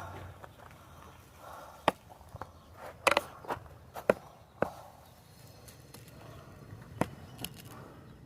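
A series of sharp, irregularly spaced clicks and snaps, a cluster of them about three seconds in, over a faint background hiss.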